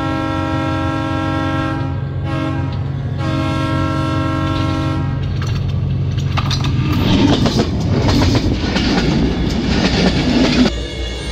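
Diesel locomotive's horn sounding three blasts, long, short and long, over the low drone of its engine as it approaches. Then the train passes directly overhead with a loud rolling clatter of wheels on the rails.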